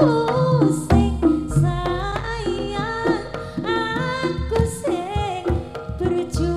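A woman singing a Javanese jaranan song into a microphone, with bending, ornamented notes. She is accompanied by a gamelan ensemble with drum strokes and low gong notes.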